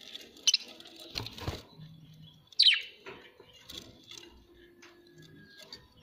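Budgerigars chirping and chattering with short high calls. The loudest is a sharp falling call about two and a half seconds in, and there are a couple of dull knocks a little over a second in.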